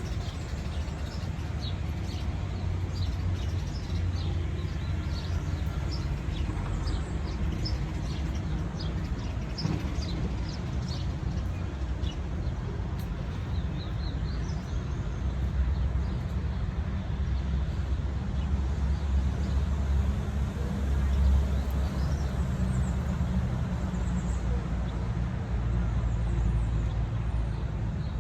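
City-park ambience: a steady low rumble of road traffic, with small birds chirping over it, most often in the first half.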